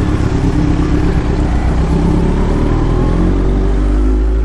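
Kawasaki Z900's inline-four engine with an Akrapovic exhaust running at a steady riding pace, its note dipping slightly about three seconds in, with wind noise over the top.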